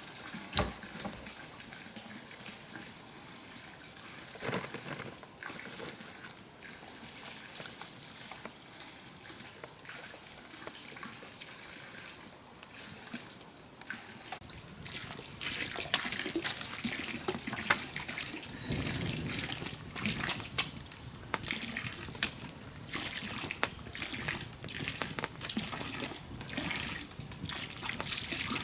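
Water trickling and splashing, with scattered small clicks and knocks; it grows busier and louder about halfway through.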